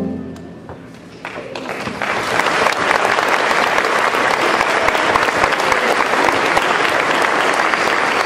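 Audience applauding after a brief hush: clapping starts about a second in and swells within a second or so into steady, dense applause.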